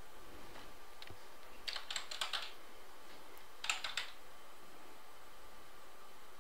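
Computer keyboard typing: two short runs of keystrokes, the first about two seconds in and the second near the middle, over faint steady room noise.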